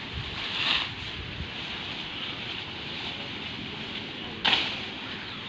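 Bamboo leaves rustling as they are grabbed and plucked from the clump, over a steady outdoor hiss, with louder rustles about half a second in and again near the end.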